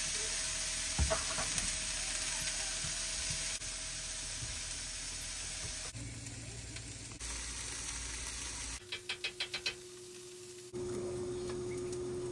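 Breakfast food sizzling and frying in a pan, with a steady hiss for the first half. After a few cuts there is a quick run of about seven clicks, then a steady hum with a held tone near the end.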